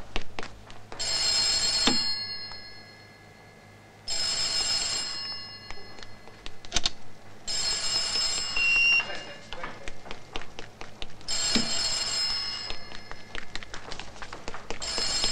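Office telephone bell ringing: five rings of about a second each, roughly every three and a half seconds. Scattered clicks and knocks fall between the rings.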